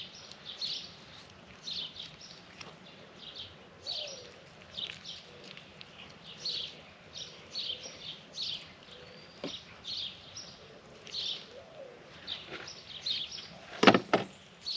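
A bird chirping over and over, short high chirps about once a second, with a single sharp knock near the end.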